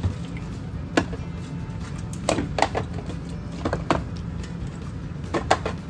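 A handful of sharp clicks and knocks, like things being handled or a latch or door being worked, over a steady low hum.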